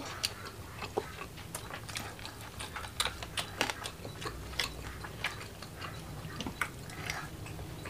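Close-miked eating sounds: chewing and mouth smacks, mixed with the handling of rice and chicken by fingers, heard as many irregular short sharp clicks.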